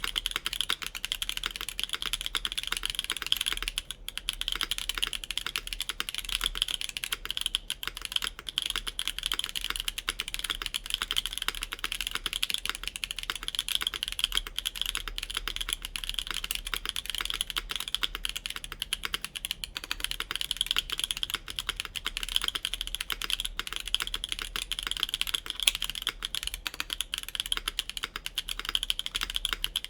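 Continuous fast typing on a Bakeneko65 mechanical keyboard with lubed Mode Obscuras linear switches, an FR4 plate and GMK Terminal keycaps: a dense, steady stream of key clicks with a few short pauses.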